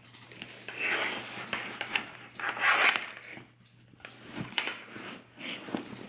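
Rustling and scuffing of a fabric organizer insert being pushed and worked into a soft lambskin leather handbag, in several short bursts with a brief quiet pause about halfway.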